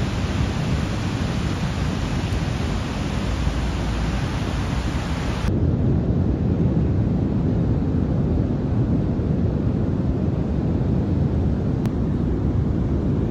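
Wind blowing on the microphone over the steady wash of ocean surf breaking on a beach. About five and a half seconds in the sound changes abruptly: the hiss drops away and leaves a duller, low rumble.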